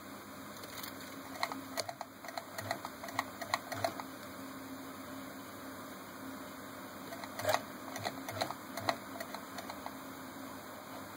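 Singer 221 Featherweight sewing machine stitching free-motion through a darning foot, in two short spurts of irregular mechanical clicks from the needle and foot, about a second in and again past the middle.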